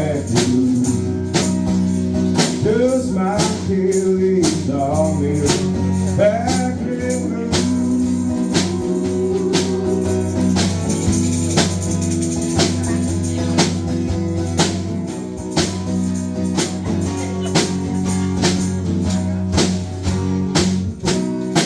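Country-blues band music without words: sustained chords over a steady beat with tambourine-like percussion, and a bending melody line over the first several seconds.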